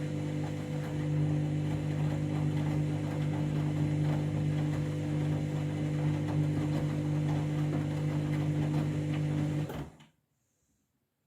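Washing machine motor running at a steady speed with an even, unchanging hum, which cuts off abruptly about ten seconds in.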